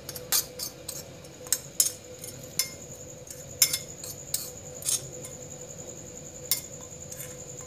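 Steel spoon clinking and scraping on a ceramic plate while mixing dry spice powders: irregular sharp clinks, thinning out after about five seconds. A faint steady hum and thin high whine run underneath.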